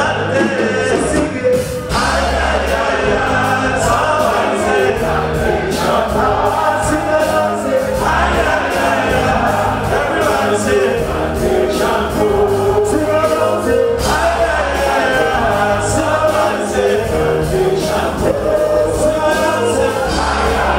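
Live band music with a group of voices singing together over a steady beat and bass line.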